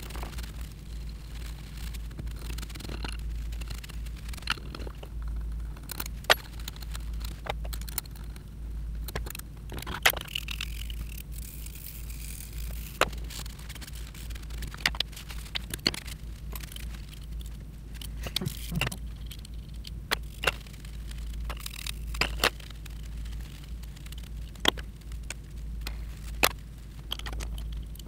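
Small aluminium lathe parts, the carriage and cross-slide of a Taig mini lathe, being handled and wiped with a shop towel: scattered sharp clicks and light metal knocks with short stretches of rubbing between, over a steady low hum.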